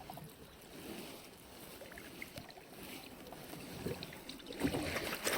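Kayak paddle strokes dipping into calm water, soft splashes and drips, getting louder near the end.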